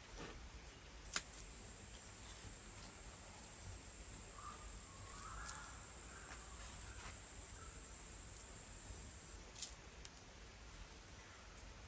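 A steady high-pitched insect trill starts about a second in and cuts off suddenly near the end. A couple of faint clicks mark its start and end, with faint knocks from clay being handled.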